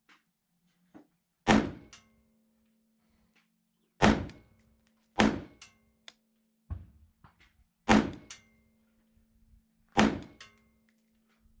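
AR-15 rifle firing five single shots at uneven intervals of one to three seconds, each a sharp crack with a short echoing tail. Fainter knocks fall between some of the shots.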